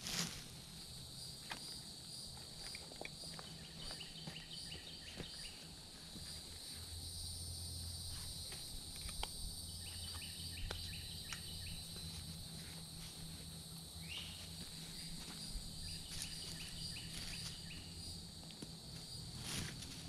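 Steady high-pitched insect chorus, with scattered light clicks and rustles from camera gear being handled in a bag.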